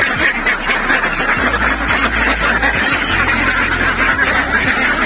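A large flock of domestic ducks quacking all at once, many overlapping calls with no break.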